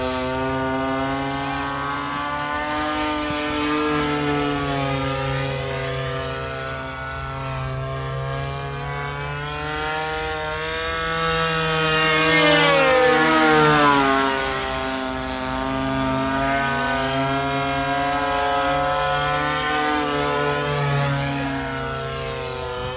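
Engines of two radio-controlled propeller model airplanes in flight, their pitch wavering as they manoeuvre. About twelve seconds in they pass close, the loudest moment, and the pitch drops as they fly by.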